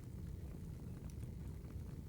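Wood fire burning: a steady low rumble with scattered small crackles and pops.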